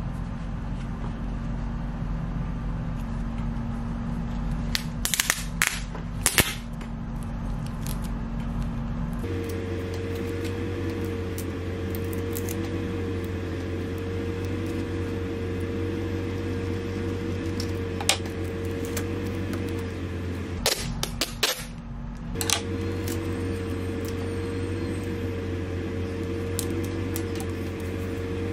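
Several sharp snaps and rips of adhesive tape being pulled and torn from a roll while cardstock pattern pieces are handled, over a steady background hum.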